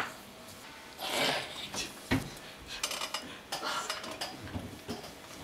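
Scattered sharp clicks and clatters of small hard objects knocking on a tabletop, with a short rustle about a second in.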